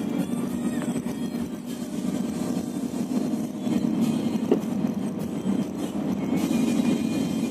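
Steady engine and road noise inside the cabin of a moving bus.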